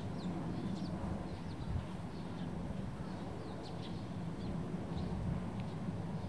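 Eurasian tree sparrows chirping: a flock giving many short, high chirps, scattered irregularly, over a steady low background rumble.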